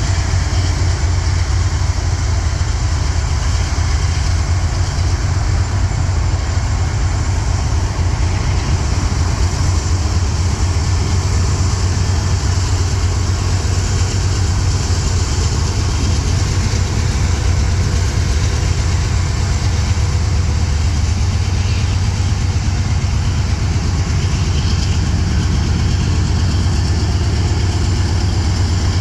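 Union Pacific diesel locomotives running with a steady, loud low rumble of their engines.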